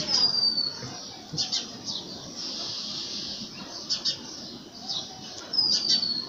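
Birds calling: scattered short, high chirps, and a high whistled note falling in pitch near the start and again near the end.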